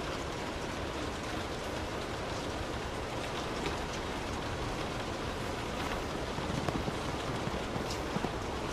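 Steady rain drumming on a car's roof and windows, heard from inside the cabin, with scattered individual drop ticks standing out in the second half.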